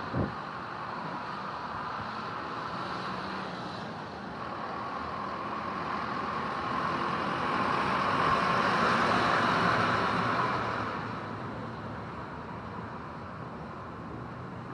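A small truck passing on the lane: its engine and tyre noise builds over several seconds, is loudest about eight to ten seconds in, then fades away over steady outdoor background noise.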